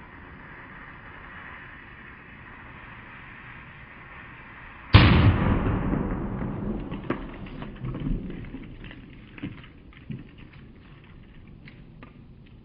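A steady hiss as the firework rocket motor on a model airplane burns without lifting it, then about five seconds in a single sharp firework bang, followed by scattered pops and crackles that die away.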